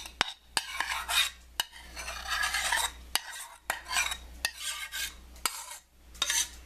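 A spatula scraping thick, creamy chicken-and-cheese sauce out of a pan into a skillet of spinach: repeated wet scraping strokes with short clicks of the utensil against the pans.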